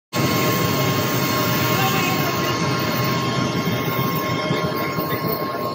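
Jet aircraft engine running on an airport apron: a steady rushing noise with a faint steady high whine.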